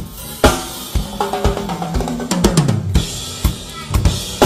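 Acoustic drum kit played fast: sharp snare and bass-drum strikes with cymbals, and a rapid fill in the middle that steps down in pitch around the toms.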